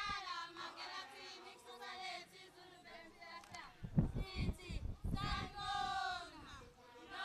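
A group of girls and young women singing together, with a short run of low thumps about four seconds in.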